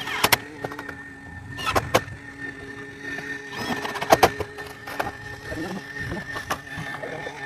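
Sharp knocks and clatters from fitting tin roofing panels, several coming in quick pairs, over a steady low hum.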